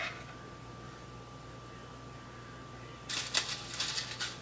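Kitchen knife chopping onion on a cutting board: after a stretch of faint steady hum, a quick run of sharp chops starts about three seconds in.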